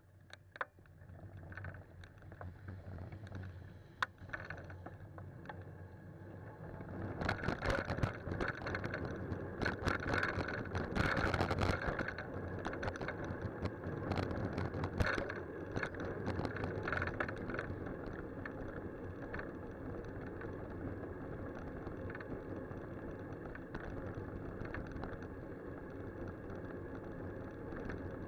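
Wind and road noise on a bicycle's handlebar-mounted camera as the bike rides along. The noise grows louder about seven seconds in, with a spell of rattling knocks over the next ten seconds, then settles to a steady rush.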